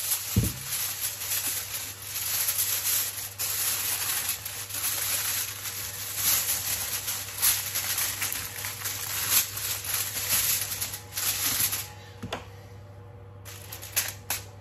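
Aluminium foil crinkling and rustling as a sheet is pulled over a baking tray and pressed and crimped around its edges. Near the end it goes quieter for about a second and a half, then a knife starts making sharp pokes through the foil.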